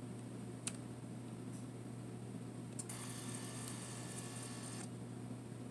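Olympus Camedia C-4040Z digital camera's lens motor whirring for about two seconds, after a click, as the camera tries to retract its lens on a nearly flat battery. This is part of its low-battery shut-off loop. An earlier single click comes a little under a second in.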